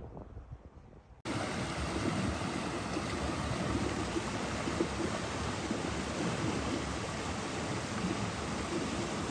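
Heavy rain pouring down, starting abruptly about a second in: a steady, dense rushing hiss with no pauses. Before it, only faint outdoor sound with a few soft knocks.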